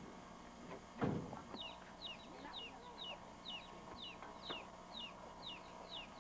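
A bird gives a steady series of short, high, falling peeps, two or three a second, starting about a second and a half in. A single thump about a second in is the loudest sound.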